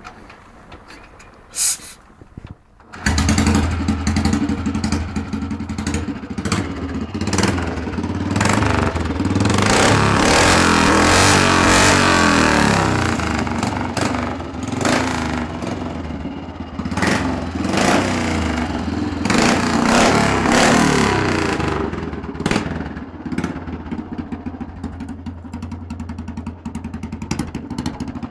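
1983 Royal Enfield 350 single-cylinder four-stroke engine on a direct exhaust with the silencer removed, very loud. It starts about three seconds in, is revved up several times, and settles back toward a fast idle near the end.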